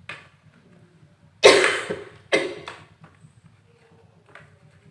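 A person coughing: a loud cough about a second and a half in, then a second, shorter one followed by a small third, from someone sick with a cold and fever.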